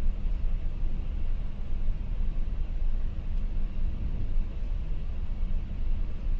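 Steady rushing noise on an McDonnell Douglas MD-11's flight deck on final approach, with the landing gear down and flaps at 50: airflow over the airframe and the engines, strongest in the low range.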